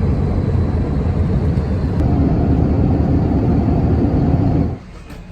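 Airliner in flight: a steady, loud rumble of jet engines and rushing air, cut off suddenly near the end.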